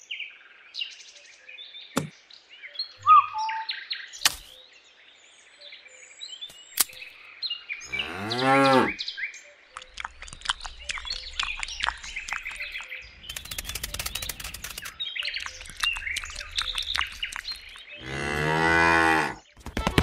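A cow mooing twice, one call about eight seconds in and a longer one near the end, with bird chirps and clicks in the first few seconds and bursts of rustling noise between the moos.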